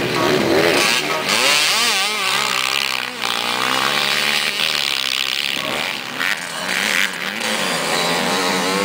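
Motocross dirt bike engines racing on a dirt track, their pitch rising and falling again and again as the riders work the throttle through the corners.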